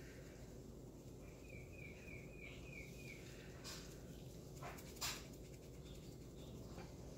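Quiet room hum with a short run of quick high chirps about a second in. This is followed by a few light clicks or taps, the sharpest about five seconds in, as a small container of glucose powder is tipped and tapped over a glass test tube.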